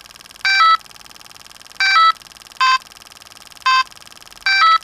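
Spin Master Bitzee virtual pet's speaker playing short electronic bleeps as its touch bar is pressed to pick menu options. There are five in all: three quick jingles of a few stepped notes and two single beeps.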